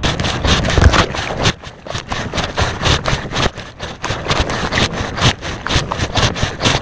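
Loud, irregular rumbling and crackling noise on a small action camera's microphone while a kayak is paddled, typical of wind buffeting the mic mixed with handling and paddle noise. It starts abruptly.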